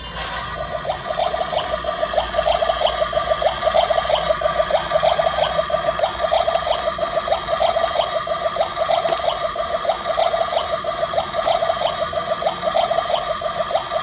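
Toy kitchen stove's electronic boiling-water sound effect: a rapid, even bubbling that swells up as the burner knob is turned on.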